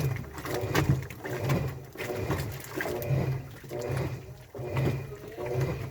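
Washing machine running its wash cycle: motor hum and churning swell and fade in an even rhythm, a bit more than once a second.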